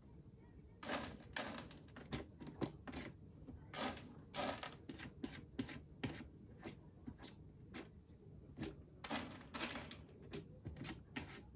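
Calico cat digging in pellet cat litter, irregular rattling scrapes as its paws rake the pellets, in several bursts with short pauses, starting about a second in.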